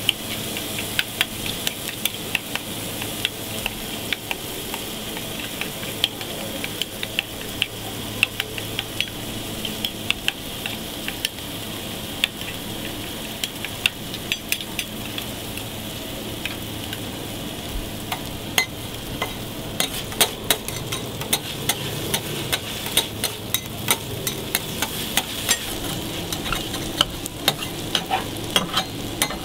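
Burger patties sizzling on a steel flat-top griddle, with frequent sharp crackles throughout, while a spoon stirs sauce in a small steel bowl on the griddle.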